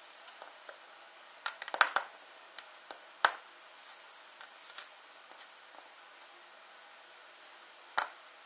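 Hands handling small toy parts on a tabletop: scattered light clicks and taps, with a quick cluster about two seconds in, one sharp tap a second later, and another knock near the end.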